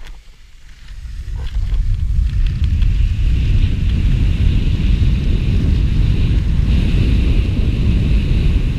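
Wind buffeting a chest-mounted GoPro's microphone while skiing downhill, with the hiss of skis sliding over hard-packed snow. It rises over the first couple of seconds, then holds at a loud, steady rumble.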